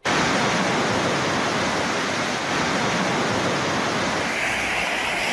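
Heavy storm downpour: a dense, steady hiss of pouring rain that turns somewhat brighter in tone about four seconds in.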